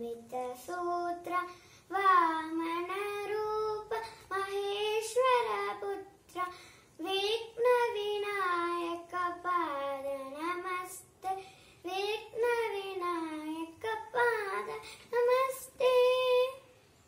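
A young girl singing a Sanskrit shloka unaccompanied, in long melodic phrases with bending, ornamented pitch. The singing stops shortly before the end.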